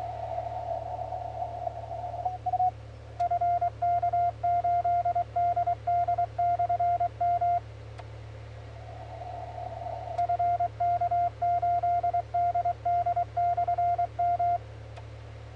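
Amateur radio transceiver sounding Morse code (CW) as a clean tone of about 700 Hz, in two keyed runs of about four and a half seconds each. Between the runs comes the receiver's filtered hiss. A sharp click marks the start of each run and comes again shortly after it ends, the transmit/receive switching. A steady low hum lies underneath.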